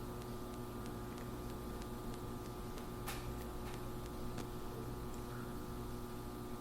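Quiet room tone: a steady electrical hum over faint hiss, with a faint click about three seconds in.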